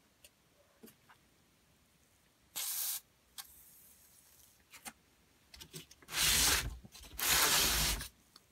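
Aerosol lubricant can spraying through its thin straw in three hissing bursts: a short one a few seconds in, then two longer, louder ones near the end. Small clicks and knocks of handling come between them.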